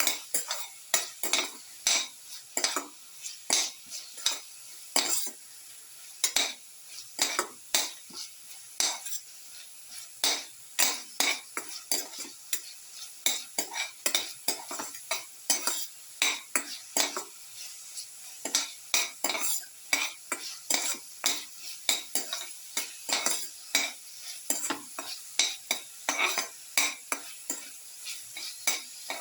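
Shallots being sautéed in hot oil in a pan: a steady sizzle under quick scraping stir strokes of a utensil against the pan, about two a second.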